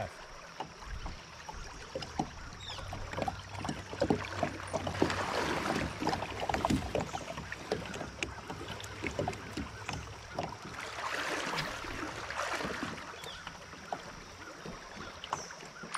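River water lapping and sloshing against a kayak's hull, with many small splashes and knocks. Louder stretches of splashing come about five and eleven seconds in.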